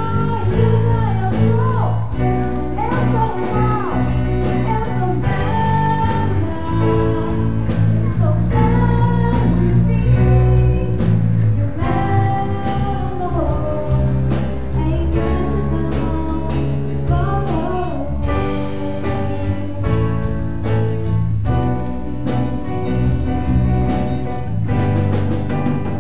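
A pop song with a sung vocal line over guitar and a steady bass.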